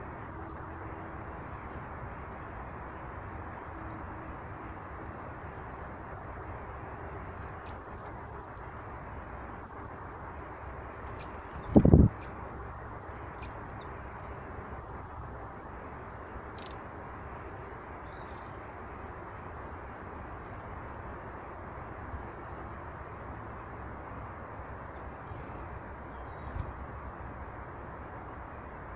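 Small birds at a feeder calling: about a dozen short, very high-pitched trilled notes, each under a second, repeated every second or two over a steady background hiss. A single low thump about twelve seconds in.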